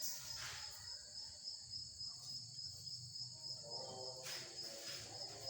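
Steady high-pitched insect trilling that runs on without a break, over faint low background noise.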